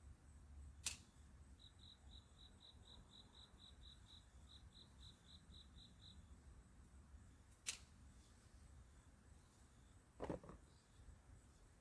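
Faint outdoor quiet with an insect chirping: a run of about eighteen evenly spaced high chirps, about four a second, lasting a little over four seconds. Two sharp clicks come about a second in and again near eight seconds.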